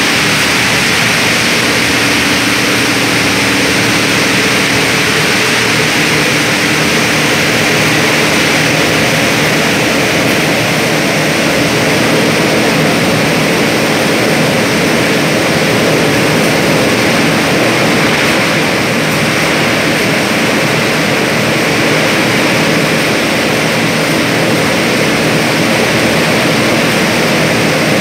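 Costarelli plastic agglomerator running, its knives turning in the steel barrel as plastic scraps are cut and heated by friction into a melt: loud, steady machine noise with a hiss on top and a low hum of several steady tones underneath.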